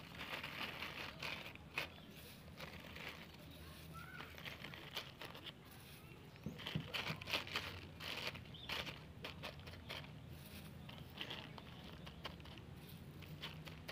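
Irregular crackling and crinkling as dry rice-husk-and-soil potting mix and black plastic polybags are handled by hand, busiest a little past the middle, over a faint low steady hum.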